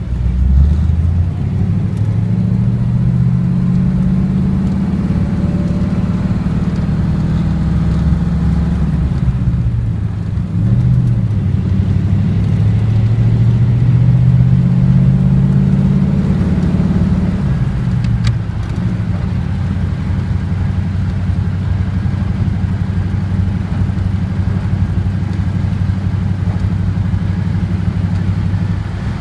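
Engine of a 1939 antique car running while it is driven. It rises in pitch as it accelerates, drops about ten seconds in as it changes gear and rises again. It falls back after about eighteen seconds and then holds a steady cruising note.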